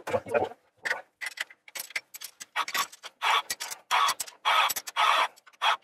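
A spanner being worked on the bolts that fasten a saildrive to a marine engine, making a quick run of short metallic clicking strokes, about two or three a second.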